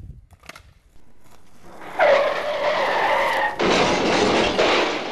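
A skidding screech with a squealing tone starts about two seconds in and lasts about a second and a half. It is followed at once by a second, shorter rush of scraping noise that fades out.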